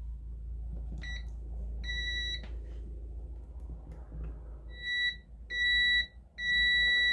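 Clamp multimeter's continuity beeper sounding as the probes are touched across the legs of a cordless drill's MOSFET: five steady high beeps, a short one about a second in, then longer ones, the last about a second long. It shows continuity across every pair of legs, which the owner takes to mean the MOSFET has shorted out.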